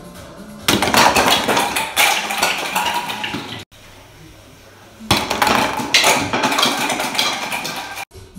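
Hollow plastic toy bowling pins knocked down on a wooden tabletop, clattering and rolling. This happens twice, starting suddenly about a second in and again about five seconds in, each lasting a few seconds.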